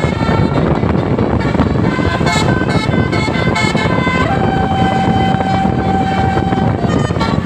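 Indonesian bus 'telolet basuri' musical horn playing a tune of short stepped notes, then one long held note from about four to seven seconds in, over loud vehicle rumble.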